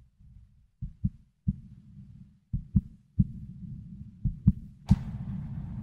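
Heartbeat sound effect: slow, deep thumps, mostly in pairs, over a low rumbling drone. About five seconds in, a sharp hit sets off music with held tones.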